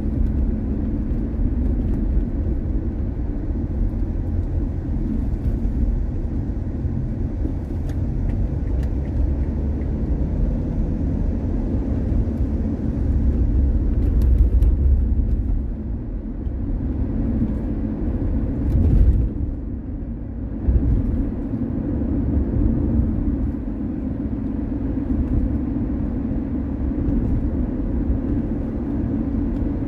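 A car driving on city roads: steady low road and engine rumble with tyre noise, swelling briefly twice about halfway through.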